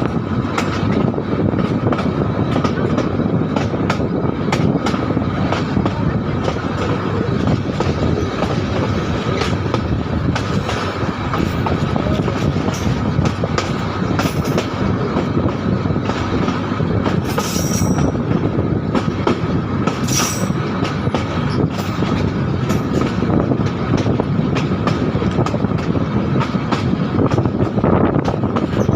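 Passenger train running at speed, heard from on board: a steady rumble of wheels on the rails with frequent sharp clicks and a thin, steady high whine from the wheels.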